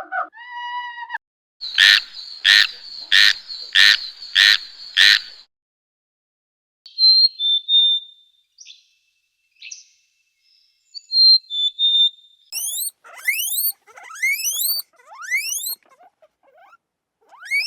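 A string of separate animal calls. First comes a short pitched call, then six evenly spaced loud pulses over about three and a half seconds, then after a pause some short high chirps, and finally a rapid run of rising whistled glides.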